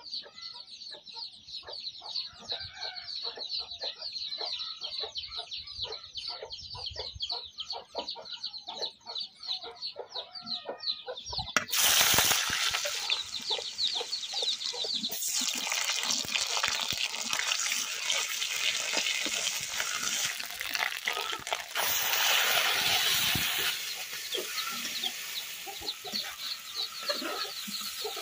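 Hot mustard-coloured oil in an aluminium kadai over a wood fire, crackling lightly at first; about twelve seconds in, sliced onions go into the oil and it breaks into a loud, steady sizzle that lasts most of the rest before settling to a softer crackle. Chickens cluck throughout.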